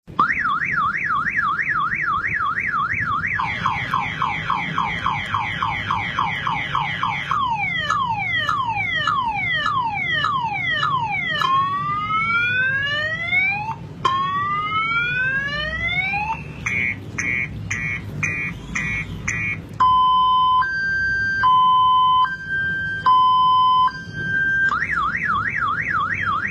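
Electronic multi-tone car alarm siren cycling through its sequence of patterns. It starts with a fast up-down warble that speeds up about three seconds in. Falling chirps follow, then rising whoops from about twelve seconds, rapid beeps from about seventeen seconds, and a two-tone high-low alternation from about twenty seconds. Near the end it returns to the warble.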